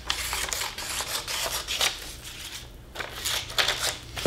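Hand scissors snipping through a paper pattern, cutting roughly around its circles: a run of quick crisp snips with paper rustling, broken by a short pause about two and a half seconds in.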